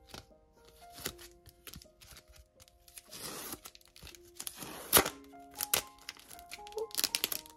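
Plastic packaging and photocard sleeves crinkling and rustling as they are handled, with a few sharp clicks, the loudest about five seconds in. Soft background music with held notes plays underneath.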